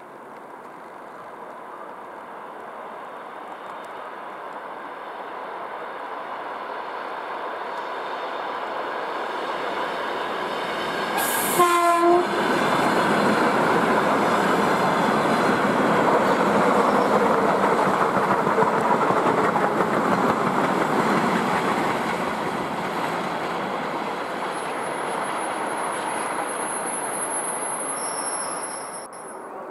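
ED9M electric multiple unit approaching and passing: the running noise of its wheels on the rails grows steadily louder and gives one short horn blast about twelve seconds in. The cars then run by loudly and the sound slowly fades as the train moves away, with a thin high whine near the end.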